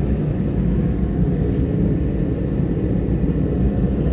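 Forge running with a steady low roar and no hammer blows.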